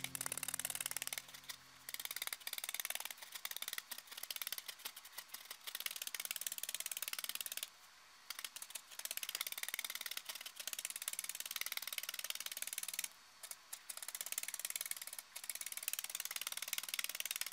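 Felting needles in a three-needle holder stabbing rapidly into wool on canvas: a dense run of quick scratchy punches that pauses briefly a few times. Background music fades out in the first two seconds.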